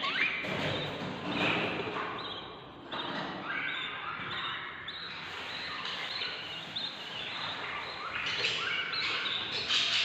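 Ten-day-old budgerigar chicks chirping to beg for food, a stream of short rising calls repeated over and over, dipping briefly about three seconds in.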